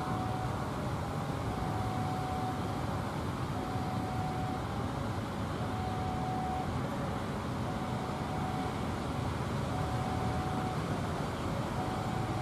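Railway level crossing warning alarm sounding a short repeated tone about every second or so, over a steady rumble of passing vehicles.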